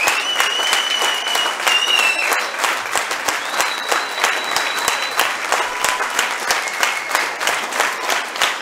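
Audience applauding with steady, dense clapping. A couple of long, high, steady tones sound over it, one in the first two seconds and another about halfway through.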